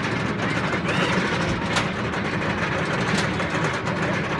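Roller coaster train running along its track: a steady rumble of ride noise, with a couple of brief sharp clicks.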